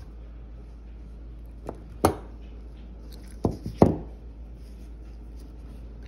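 Small metal plug parts and tools being handled and set down on a tabletop: a light tap, a loud sharp knock about two seconds in, then three quick knocks, over a steady low hum.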